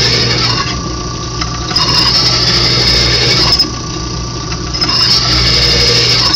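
Drill press running with a steel-cutting twist drill boring into half-inch steel plate. The bit squeals in stretches of about two seconds each time it is fed into the cut, with quieter gaps of the motor alone between.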